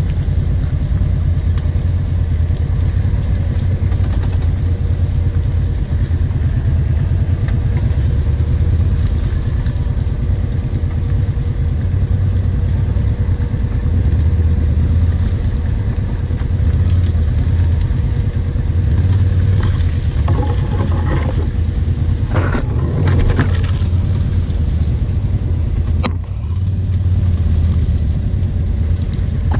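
Kawasaki KVF 750 Brute Force ATV's V-twin engine running steadily under way on a rough trail. About two-thirds of the way through, branches and leaves rustle and scrape past for a few seconds, followed by a single sharp click.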